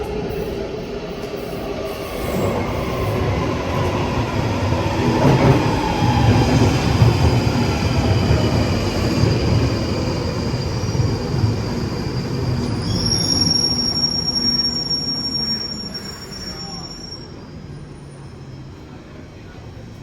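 London Underground 1995 Stock train pulling into a station: a loud rumble of wheels on rail with a whine that falls as it slows, and a high steady squeal for a few seconds about two-thirds of the way through as it comes to a stop. The noise then dies down.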